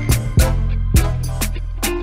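Background music with a drum beat and a steady bass line.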